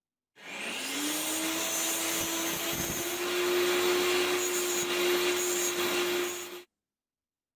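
Angle grinder mounted in a stand spinning up and running steadily, its whine rising in pitch over the first second and then holding. It is used to grind the burred cut end of an aluminium tube against the disc, and it stops abruptly near the end.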